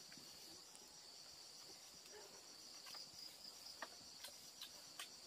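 Faint insects chirring in a steady high-pitched pulsing drone, with a few soft clicks late on.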